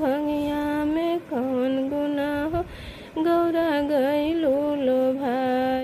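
A woman singing a Bhojpuri folk Shiv vivah geet (Shiva wedding song) as a single voice. She holds long notes with sliding ornaments and breaks off for a moment about two and a half seconds in before resuming.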